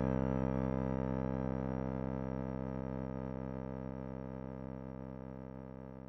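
Electronic music: a sustained synthesizer chord of many steady tones, fading slowly away.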